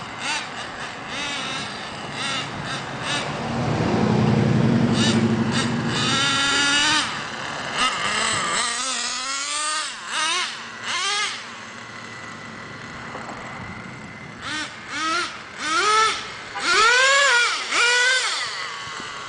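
Traxxas Jato 3.3's small two-stroke nitro engine revving hard in repeated throttle blips, its high whine rising and falling with each burst as the truck speeds along the pavement. It is loudest a few seconds in, with a string of short sharp revs near the end.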